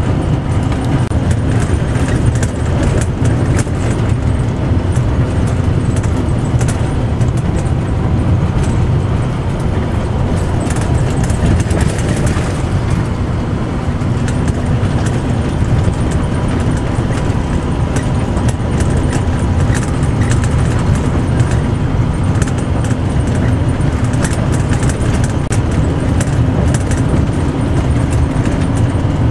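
Steady low rumble of a moving passenger vehicle heard from inside, with a continuous scatter of rattles and clicks.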